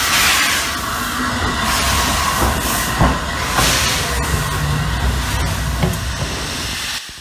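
Steam locomotive Flying Scotsman, an LNER A3 three-cylinder Pacific, moving slowly past with its cylinder drain cocks open: loud steam hissing that surges in repeated gusts over a low rumble of the engine, with a few sharp clanks. The sound cuts off suddenly near the end.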